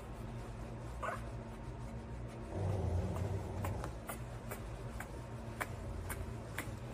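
Newborn bulldog puppy being rubbed dry in a towel, giving a short squeak about a second in and a low grunt around three seconds in. A run of sharp ticks, about two a second, follows over a steady low hum.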